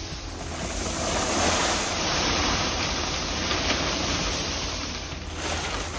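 Loose ground styrofoam beads rustling and pouring as they are scooped up in a plastic trash can and tipped out into a bag: a steady hiss.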